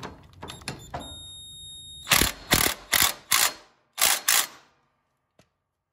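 Cordless impact wrench with a 17 mm socket tightening the steering rod nut on a lawn tractor's front spindle arm. After a few clicks and a brief whir it hammers in six short bursts, four close together and then two more.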